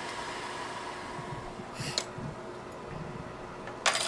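Steady whir of a bench fan with a faint steady hum, broken by two short hissing scrapes, one about two seconds in and a louder one near the end.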